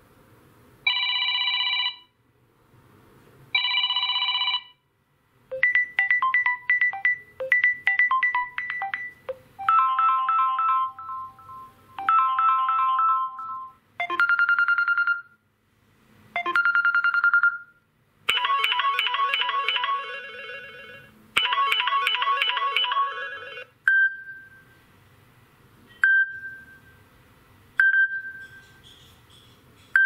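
Samsung Galaxy A01 stock ringtones previewed one after another through the phone's speaker. First a ringing trill twice, then short melodic and chiming note patterns and two sustained bell tones in the middle. Near the end come single short beeps about every two seconds.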